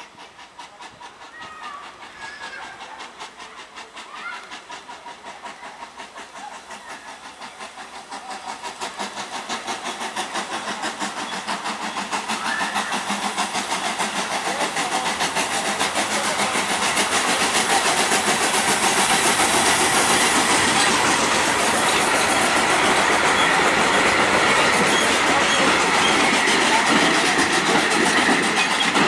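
Tubize 2069 steam locomotive pulling away with a passenger train: rhythmic exhaust chuffs that grow steadily louder as it approaches. In the second half the coaches pass close by, with wheels clattering over the rail joints.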